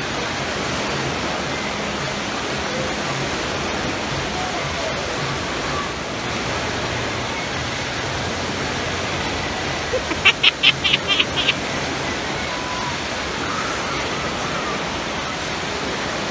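Wave pool waves rolling and breaking into foam, a steady wash of water, with faint voices of swimmers. About ten seconds in, a quick run of about seven sharp high-pitched chirps cuts through.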